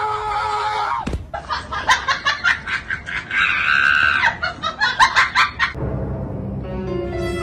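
A person laughing in quick repeated bursts, broken by a high-pitched shriek lasting about a second. Music comes in near the end.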